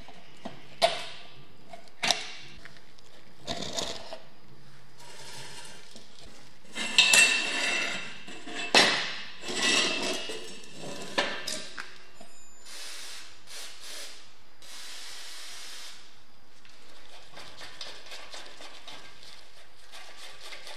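Hand tools on the rusty steel parts of a BBQ smoker being taken apart. A few sharp metal clicks come first, as a pin is worked out of a wheel hub. About seven to eleven seconds in there is a run of loud metal knocks, then scraping, and only faint clinks of a screwdriver on a bolt near the end.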